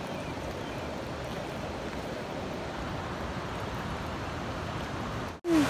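Steady rushing noise of river water and wind at a rocky shore. Near the end the sound breaks off for an instant and a voice cuts in.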